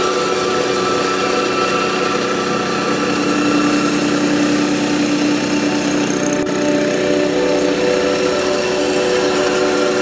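Small crawler-type rice combine harvester running steadily as it works through standing rice, its engine and machinery making a continuous hum with several steady tones. The pitch shifts slightly about six and a half seconds in.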